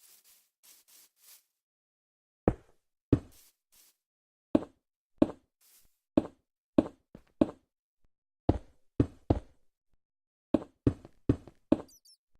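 A series of about fifteen sharp knocks at an uneven pace, starting a couple of seconds in, each with a short ring. Faint scraping comes before them.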